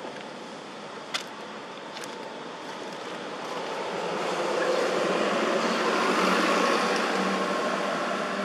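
A steady outdoor rushing noise that swells to its loudest about halfway through and then eases off, with two sharp clicks in the first couple of seconds.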